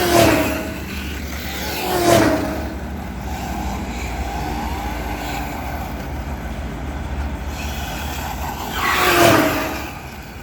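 Vehicles passing close by three times, twice in quick succession and once near the end. Each rises and fades with a falling pitch as it goes past, over a steady low rumble of traffic.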